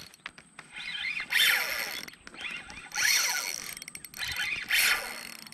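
Spinning reel being cranked in short spurts, its gears whirring with each run of handle turns as a lure is retrieved. A few sharp clicks come first.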